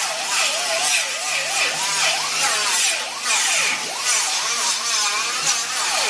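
Handheld power tool working metal, its motor whine dipping and rising again and again as it bites under load.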